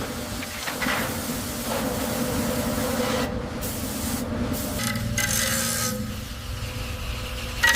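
Heavy steel part scraping and rubbing as it is lowered into place on a hoist, over a steady machine hum. The hum grows deeper about five seconds in.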